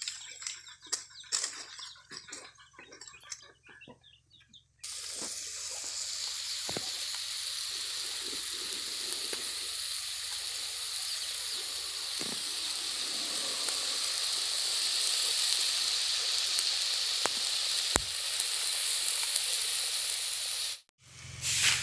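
Small fish frying in hot oil: a steady sizzling hiss with an occasional sharp pop. It starts suddenly about five seconds in and cuts off suddenly near the end.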